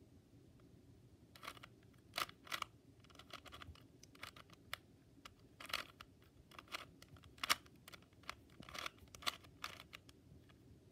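Plastic Rubik's Cube being turned by hand: irregular sharp clicks and scrapes as its layers rotate, coming singly or in quick clusters with short pauses between.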